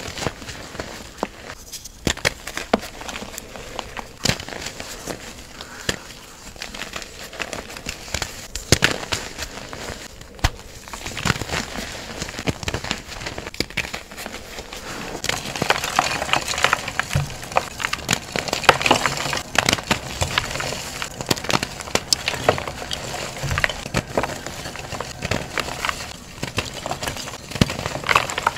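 Chunks of gym chalk crunching and crumbling as hands squeeze them in loose chalk powder: dense crackling with many sharp little snaps, busier and louder from about halfway through.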